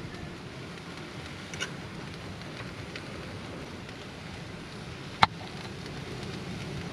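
Onions frying in a pan on a portable gas stove, a steady sizzle. About five seconds in, one sharp click as the lid of a jar of pasta sauce is twisted open.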